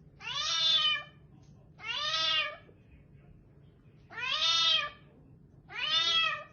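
A cat meowing four times, each call lasting under a second and rising then falling in pitch, with short pauses between.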